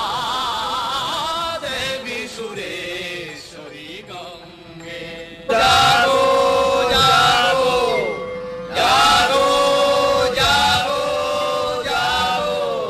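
Chanted singing over music, the voice wavering in pitch. Louder sung phrases come in about five and a half seconds in and again near nine seconds, each sliding down in pitch at its end.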